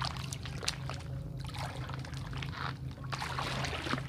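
Bare feet wading and treading through shallow muddy water: irregular splashing and sloshing, over a steady low hum.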